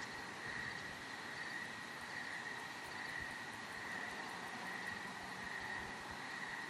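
Night insects, crickets by the sound, trilling in a steady, continuous chorus on one high pitch.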